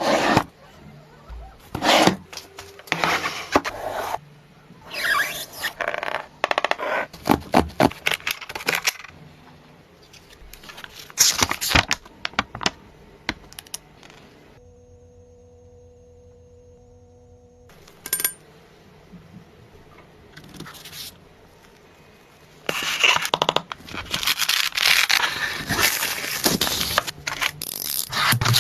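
Irregular scraping, rubbing and clinking of hand work on parts, in short bursts. Partway through, a steady low hum takes over for a few seconds.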